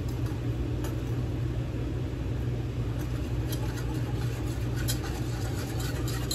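A steady low machine hum, with a few faint clinks of a wire whisk against a saucepan as flour is whisked into melted butter for a roux.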